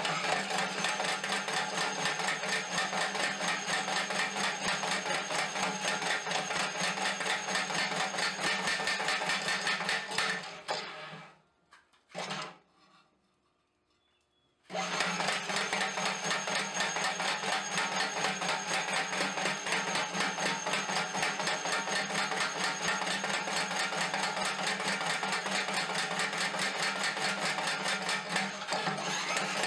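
Small homemade anvil-mounted power hammer running, its ram hammering a red-hot mild steel bar on the bottom die in rapid, even blows, many a second. The hammering stops about ten seconds in and starts again about four seconds later.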